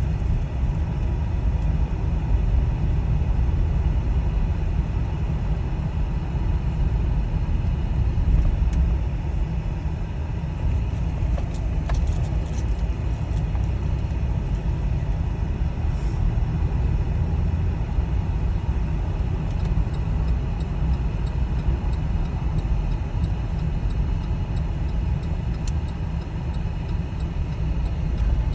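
Car driving, a steady low rumble of engine and road noise, with a few faint clicks about twelve seconds in.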